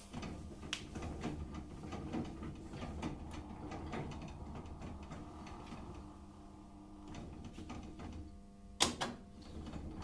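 LG direct-drive top-load washing machine starting a spin cycle: a low hum with light clicking and rattling, then one sharp click near the end as the repaired lid lock engages on the first attempt.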